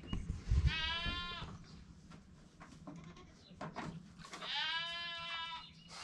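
A goat bleating twice: a short call about a second in, then a longer one of more than a second near the end. A few dull knocks come just before the first call.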